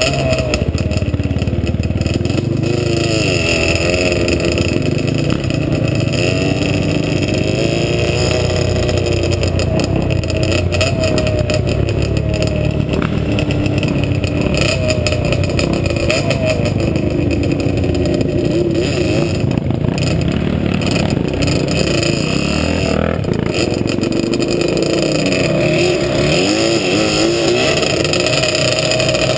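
Sport quad (ATV) engine running and revving, its pitch rising and falling repeatedly with the throttle.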